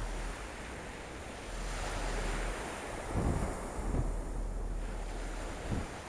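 Beach surf washing up over the sand and draining back, a steady hiss that swells about a second and a half in. Wind buffets the microphone in low gusts.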